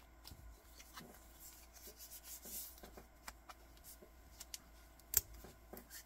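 Handling noise from a sailcloth watch strap and its stainless steel deployant clasp: faint scattered rustles and small clicks, with one sharp click about five seconds in.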